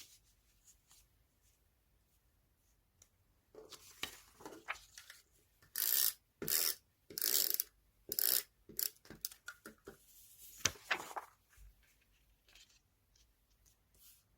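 Paper being worked by hand: a run of short, crisp strokes a few seconds in, loudest in the middle, then a few light ticks near the end.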